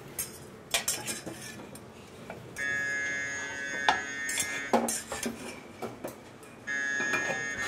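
An oven's electronic alarm sounds a long steady beep about two and a half seconds in, then again near the end. Metal pans and utensils clank on the range around it.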